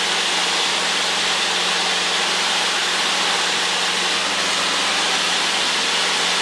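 Light aircraft's piston engine running steadily at climb power just after lift-off, with a low steady hum under a loud, even rush of engine and air noise in the cockpit.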